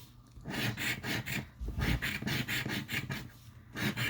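A scratch-off lottery ticket being scratched: quick rasping strokes across the coating in three short runs, with brief pauses between them.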